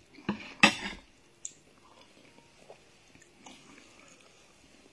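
A person eating a spoonful of rice: two short, loud mouth-and-spoon noises in the first second as the spoon goes into the mouth, then quiet chewing with a few faint clicks.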